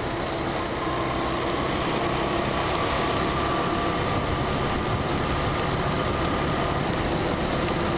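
Motorcycle riding on a wet road: steady wind rush over the rider's microphone, with the engine humming evenly underneath.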